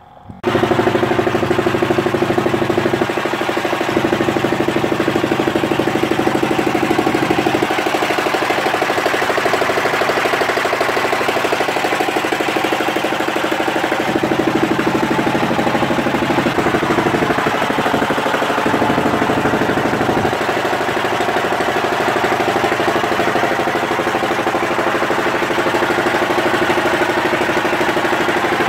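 A fishing boat's engine running steadily and loud, coming in abruptly about half a second in, with a constant hum of several held tones.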